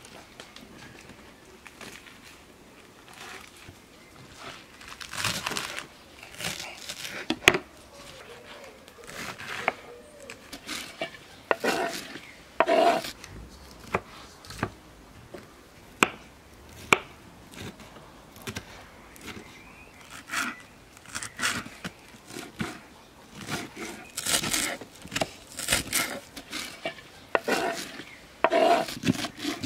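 Fresh leafy herbs and greens being handled, leaves rustling and crinkling in irregular bursts, with scattered sharp knocks.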